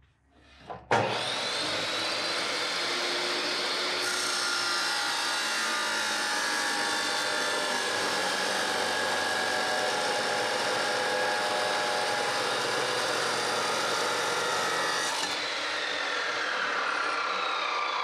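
A RIDGID 14-inch abrasive chop saw starts suddenly about a second in and cuts through steel bar stock with a steady grinding whine. About fifteen seconds in the cut ends and the motor winds down, its pitch falling.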